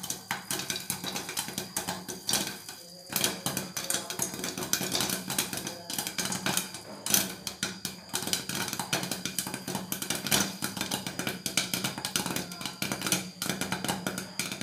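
Popcorn kernels popping rapidly in a covered non-stick fry pan under a glass lid: a dense, irregular run of sharp pops, the full popping stage before it tapers off.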